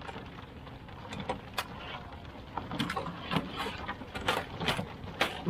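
Irregular sharp knocks and clatter, about ten of them, coming thicker after the first couple of seconds, over a steady background hum.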